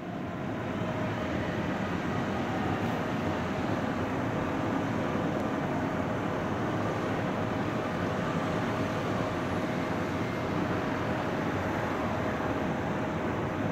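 Jet engines of a Boeing 767-300ER on final approach: a steady roar with a constant whine through it, fading in over the first second.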